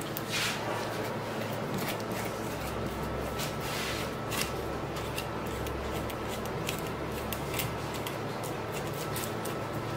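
Large kitchen knife cutting sturgeon along the backbone on a plastic cutting board: a scattered run of short clicks and brief scrapes as the blade works through flesh and cartilage and taps the board.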